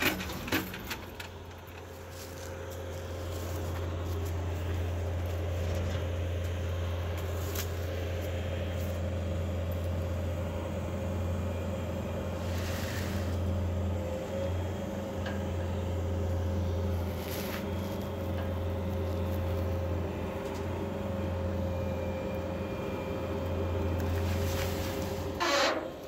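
Tracked skid steer's diesel engine running steadily as it loads a large log onto a dump trailer, a low hum with a steady whine above it. A few brief knocks come about halfway through.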